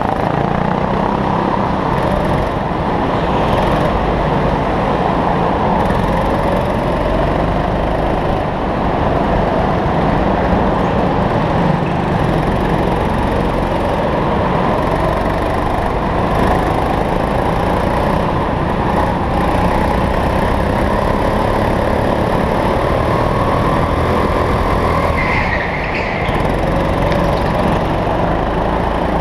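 Go-kart engine heard from on board, running hard with its pitch rising and falling as the kart accelerates and slows through the corners, other karts' engines close around it. A short high squeal near the end.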